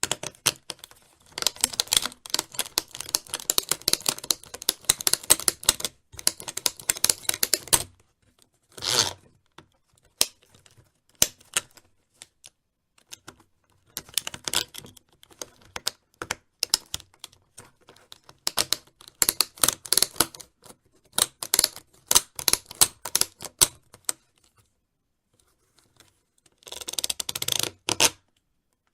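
Plastic snowboard binding straps being ratcheted: quick runs of ratchet clicks, single clicks, and the rustle and rattle of the plastic parts being moved. A short scraping burst comes near the end.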